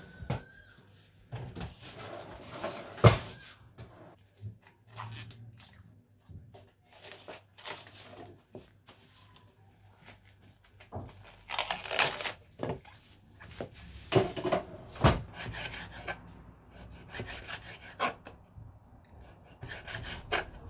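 Kitchen prep handling sounds: scattered knocks and clatter on the counter, with a sharp knock about three seconds in the loudest. A plastic bag rustles in the middle, and a knife starts cutting raw pork on a wooden cutting board near the end.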